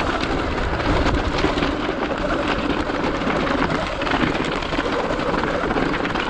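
Sur Ron X electric dirt bike's knobby tyres crunching and grinding over loose rock scree. Small stones clatter in a steady stream of clicks and knocks.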